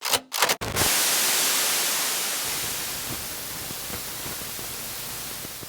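A few short bursts of noise, then a loud, even static hiss that slowly fades.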